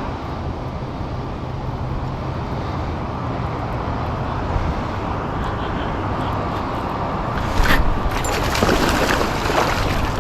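Strong wind buffeting the microphone, a steady low rumbling rush. About three-quarters of the way through, a sudden sharp burst of noise, followed by rougher, louder rustling.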